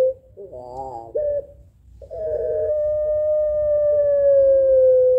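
Puter pelung (long-voiced Barbary dove) cooing: a long coo ends at the very start, then comes a short wavering call, and about two seconds in another long, drawn-out coo of about three seconds that slides slowly down in pitch.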